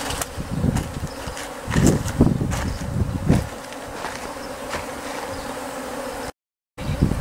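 Japanese honeybees buzzing in numbers around the hive entrance as a swarm seems to be starting. The buzz is loud and surging in the first half, steadier after, and the sound drops out for about half a second near the end.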